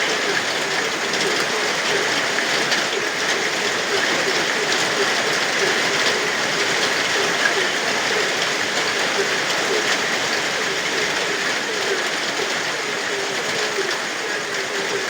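Steady rain falling, with frogs giving frequent short, low croaks throughout.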